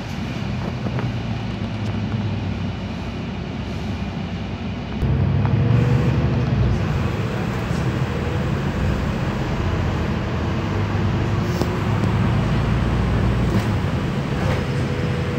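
Interior ride noise of a Solaris Urbino 12 IV city bus on the move: steady engine rumble and road noise, with the engine getting louder about five seconds in as the bus pulls harder, and a faint whine running over it.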